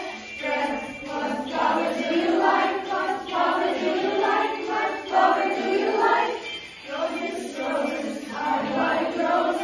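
A group of voices singing a song together, in phrases with short breaks between them.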